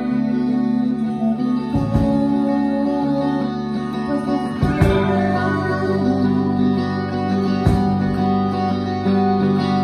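A live band playing: guitar chords ringing on steadily, with three heavy drum accents about three seconds apart.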